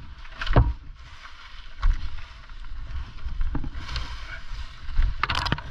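Dry palm fronds rustling and scraping as they are handled, over a low rumble on the helmet-mounted microphone, with a few sharp knocks: one about half a second in, one near two seconds and one near the end.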